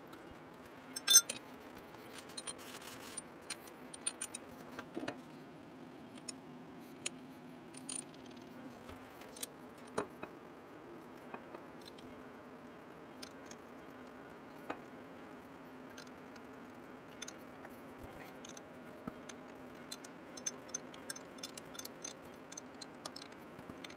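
Scattered small metallic clicks and clinks as a heavy fly cutter is handled and fitted onto a horizontal boring mill's spindle face, with one sharper click about a second in. A faint steady hum runs underneath.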